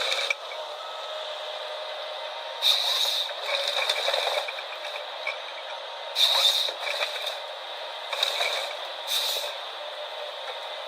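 Logset 6HP GTE wheeled forestry harvester working: a steady machine drone broken by about six short bursts of harsh, hissing noise.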